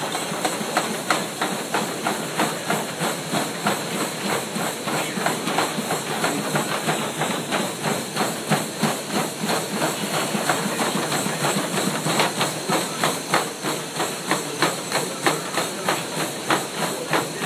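Several people sprinting on treadmills: a fast, continuous run of footfalls striking the moving belts over the steady whir of the treadmills.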